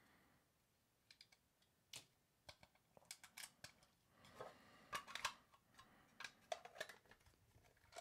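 Faint, irregular clicks, taps and short scrapes of hard plastic: a diecast model car's plastic display case and base being handled and taken apart, thicker in the second half.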